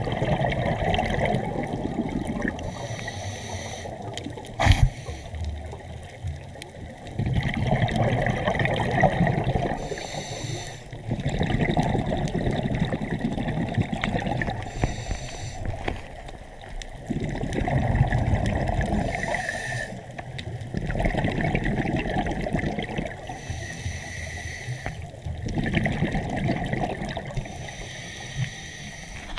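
Water washing and trickling in surges that swell and fade every four to five seconds, with a single sharp knock about five seconds in.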